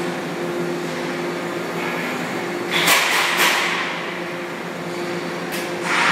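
Aluminium extrusion line machinery running with a steady hum and held tones. Louder hissing swells rise and fade about three seconds in, and again near the end.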